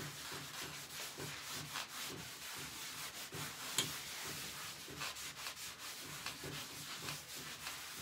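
Damp cloth rubbing back and forth over a chalk-painted pine cabinet panel in repeated short strokes as a wet paint wash is wiped back. There is one sharper click about four seconds in.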